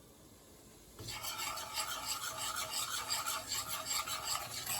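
Curry powder sizzling in hot oil in a pot: a dense, steady crackling hiss that starts about a second in.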